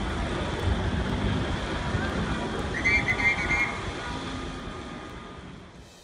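Street noise of traffic and a crowd gathered in the road, a dense steady rumble and hubbub, with a short run of high-pitched pulsing tones about three seconds in; it fades out near the end.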